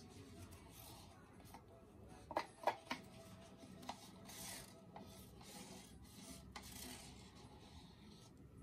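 Faint rubbing and crinkling of a disposable paint cup being turned and squeezed in gloved hands. Three sharp clicks come about two and a half seconds in.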